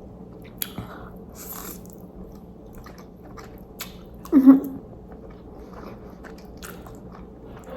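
Close-miked eating of Korean black bean instant noodles: chewing with small wet mouth clicks, and one short louder sound about four and a half seconds in.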